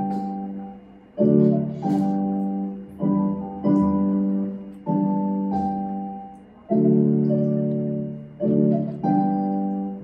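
Digital keyboard on a piano sound playing a slow piece: chords and melody notes struck one after another, each fading away before the next.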